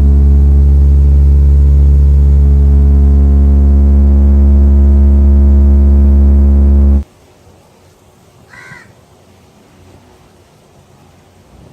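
A loud, steady low hum cuts off suddenly about seven seconds in. In the quiet that follows, a crow caws once, about nine seconds in.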